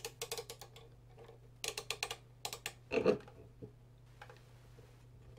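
Rotary multi-position selector switches on an ECG monitor's front panel being turned by hand, clicking in rapid runs through their detent positions, with a louder dull knock about three seconds in.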